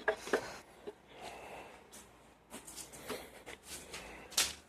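Faint metal clicks and scraping as a Ford 8340 tractor transmission's rear cover is worked by hand down over the shafts onto the case, with a sharper click near the end.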